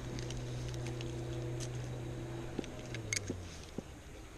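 An engine humming steadily, then dropping slightly in pitch and fading out about three seconds in, with a few light clicks near the end.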